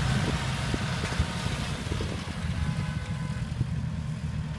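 Diesel engines of Kubota L4508 and John Deere 5204 tractors running steadily, a low rumble with a few light knocks.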